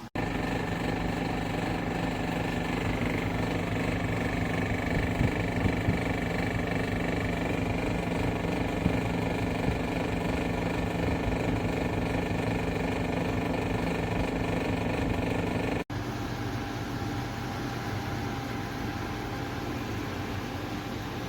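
KGOGO portable air conditioner running, its compressor and fan making a steady hum with a high whine on top. The sound cuts out for an instant about 16 seconds in, then carries on slightly quieter.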